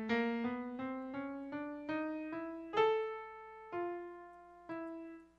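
Piano music: a run of single notes climbing steadily upward, about four a second, then three longer held notes.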